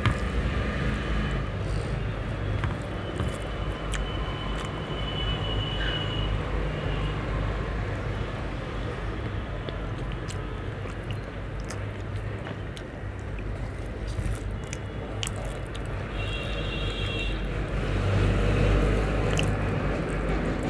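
Fingers mixing rice and curry on a steel plate, with soft chewing and scattered small clicks. Under them a steady low background rumble swells a few seconds before the end, and faint high tones come twice.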